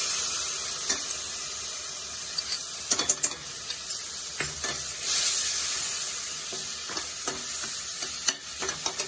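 Wet spice paste of red chilli, turmeric and coriander powder mixed with water sizzling in hot oil with fried onions in a stainless steel kadai. The sizzle is steady and swells again about halfway through. From a few seconds in, a metal spoon stirring it gives scattered clicks and scrapes against the pan.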